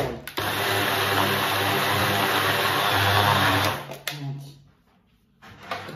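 Electric food processor running, grinding blanched almonds, with a brief dip about a quarter second in; the motor is switched off just under four seconds in and winds down.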